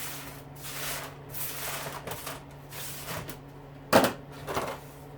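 Clean-up noises: scrap parts and tools being handled, with rustling and scraping and a sharp knock about four seconds in, over a steady low hum.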